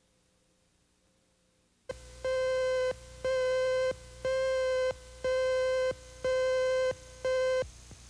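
Near silence, then a click and a videotape slate tone beeping six times, about once a second. Each beep is one steady, buzzy mid-pitched tone lasting under a second, the cue tone marking the start of a recorded segment.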